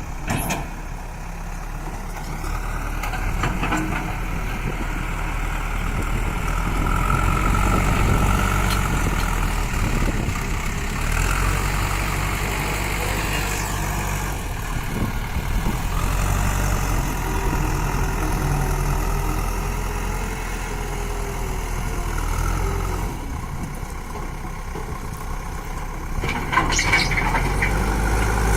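JCB backhoe loader's diesel engine running steadily under work, its loudness swelling and easing. There is a sharp clank at the start and a short run of clanks near the end.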